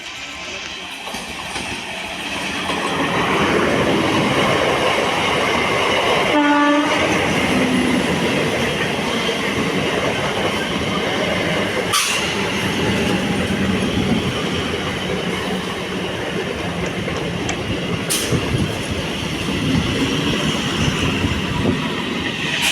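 Indian Railways electric train running past on the track, the noise building over the first few seconds and staying loud, with one short horn blast about six seconds in and a couple of sharp clicks later.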